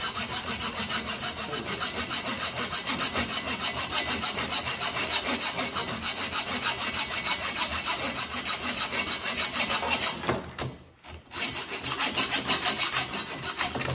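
A hand hacksaw cutting through the metal rear axle of a Wilesco model steam traction engine, in quick, even back-and-forth strokes. The sawing stops for about a second near the end, then picks up again.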